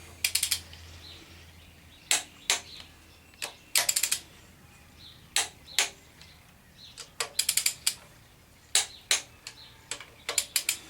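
Ratchet-head torque wrench on cylinder head bolts, clicking in short quick runs of several clicks with single sharp clicks between, as the bolts are pulled down on a first torque pass to 30 ft-lb.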